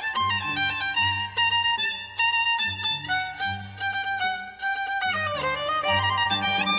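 Recorded dance music led by a violin melody with sliding notes, over a low bass line.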